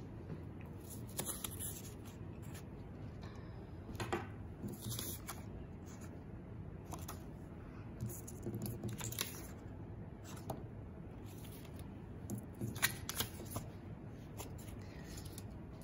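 Paper index cards being handled and slid across a wooden tabletop: scattered short rustles and scrapes of card stock, over a steady low room hiss.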